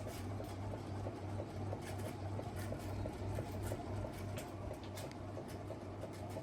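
Casablanca Delta ceiling fan running in reverse: a low motor hum with an even ticking several times a second and scattered clicks, the noise of its bad bearings.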